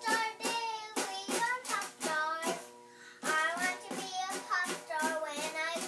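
A five-year-old girl singing a song she is making up as she goes, in a high, wavering voice broken into short syllables.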